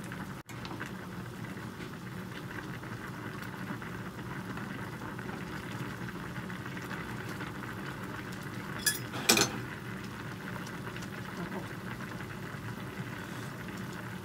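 Sea bream (tai) head and vegetable soup boiling in a frying pan, a steady bubbling. About nine seconds in come two sharp metal clinks close together, a ladle knocking against the pan.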